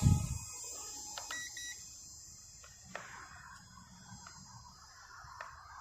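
Small electric motor of a toy-grade RC Cessna plane running at full throttle: a faint steady high-pitched whine, with a louder low rush right at the start that dies away within half a second, and a few faint ticks.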